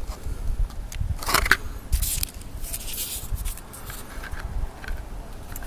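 Cardboard firework box being handled and opened and a paper-wrapped ground-spinner tube pulled out: short bursts of rustling and scraping about a second and two seconds in, and a longer rustle around three seconds, over a low rumble.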